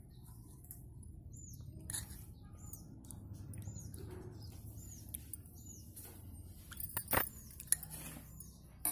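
Steel spoon stirring and scooping a watery slurry in a glass bowl, with a few sharp clinks against the glass, the loudest about seven seconds in. Over it, short high chirps repeat steadily, about one every 0.7 seconds.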